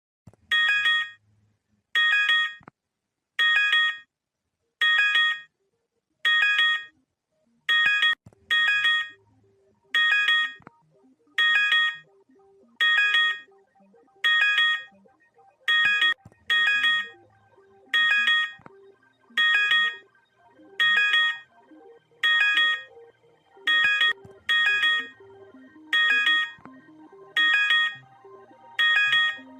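Emergency alert tone: loud half-second beeps, each a chord of several high pitches sounded together, repeating steadily about every second and a half, some coming in quick pairs.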